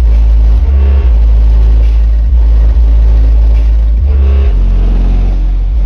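Bass-heavy music played very loud through a car's CA Audio 500 W RMS subwoofer driven by a Moco mono amplifier, heard through the open door. Deep bass notes hold and shift in pitch now and then.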